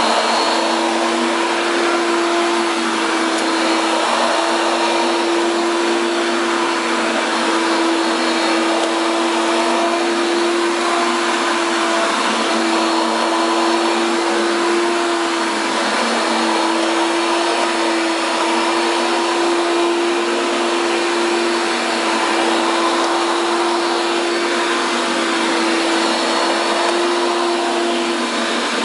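Hoover Power Drive U6311-930 self-propelled upright vacuum running steadily: its 7.8-amp direct-air motor gives a loud, even whine over rushing air. It sounds noisy.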